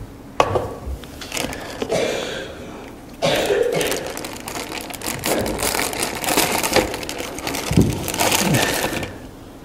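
Handling noise from a plastic 5-gallon bucket: a sharp click near the start, then rustling, crinkling and knocking that grows busier after about three seconds.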